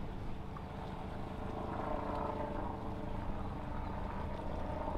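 Boat engines running steadily across the water, a low hum with a higher wavering drone joining about two seconds in.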